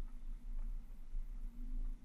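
Muffled low rumble and steady hum of a Jeep Wrangler JKU's engine as it crawls slowly along a rocky trail.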